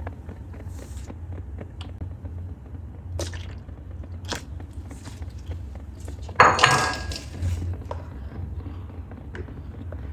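Custard mixture being poured into a pot of hot milk, with a loud splash about six and a half seconds in. Before it come a few light clinks of a utensil against the aluminium pot, over a steady low hum.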